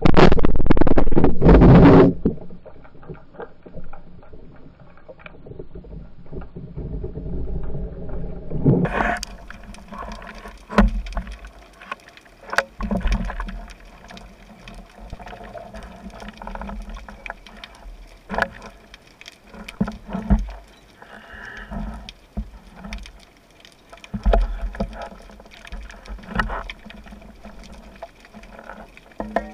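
Water noise around a spearfisher's camera: a loud rush of water lasting about two seconds, then scattered sharp clicks and knocks over a low rumble.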